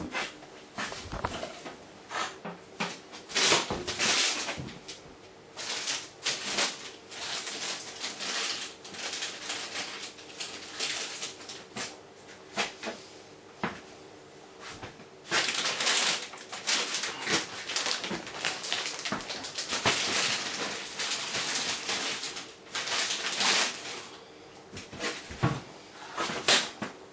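A pan of carp-bait boilies boiling hard in water, giving an irregular bubbling and spitting over a faint steady hum.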